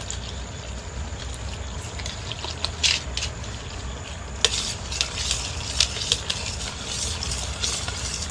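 Water pouring into a steel pot of packet soup powder, then a metal spoon stirring the mix, clinking and scraping against the pot many times from about four seconds in, over a low steady hum.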